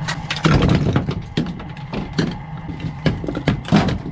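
Chunks of glacier ice being handled on an aluminium boat: a quick, irregular series of sharp knocks and clatters as ice hits the metal deck and side tray.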